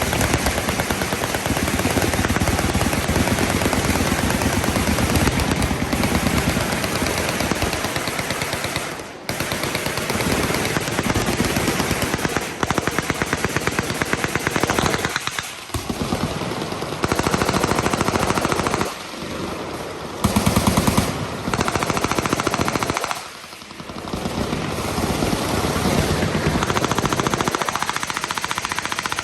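Machine guns firing fully automatic: rapid, overlapping bursts run almost without a break, with a few short lulls between strings of fire.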